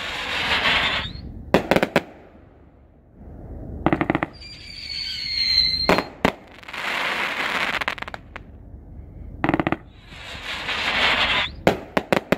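Grand Patriot 'Joker' 500-gram, 36-shot consumer firework cake firing shot after shot. Each shot lifts with a dull thump, then breaks in a hissing, crackling shower and sharp bangs. A high whistle sounds for a second or two about four seconds in.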